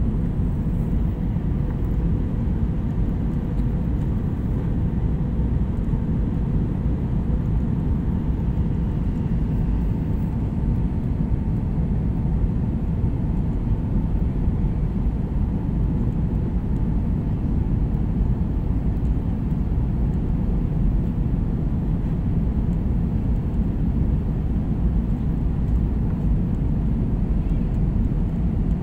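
Steady low drone of a jet airliner's engines and rushing air, heard inside the passenger cabin in cruise flight, with a faint steady hum over it.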